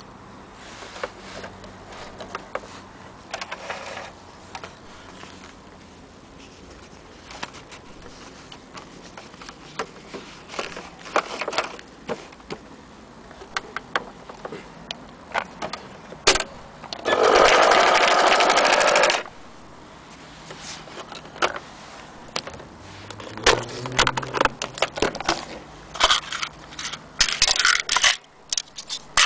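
Clicks, taps and knocks from a Singer electric sewing machine and its foot pedal being handled, with one loud, dense burst of noise lasting about two seconds a little past the middle.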